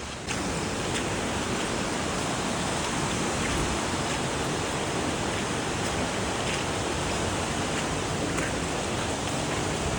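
Steady rush of flowing water, coming in abruptly a moment in and holding at an even level.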